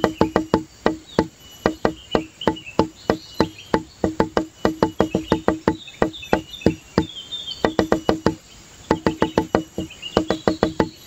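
Background music of wood-block-like percussion: quick irregular runs of hollow, pitched knocks, several a second, with short chirping high sounds above them.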